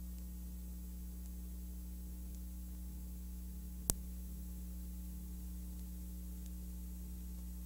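Steady low electrical hum and hiss on the empty soundtrack of a silent Super 8 film transfer, with one sharp click about four seconds in.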